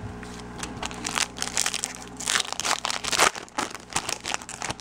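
Foil trading-card pack wrapper being torn open and crinkled by hand: a dense run of sharp crackles, busiest in the middle.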